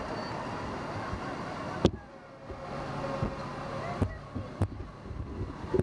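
Fire engine running as it rolls slowly past, with a few sharp knocks, the loudest about two seconds in and another near the end.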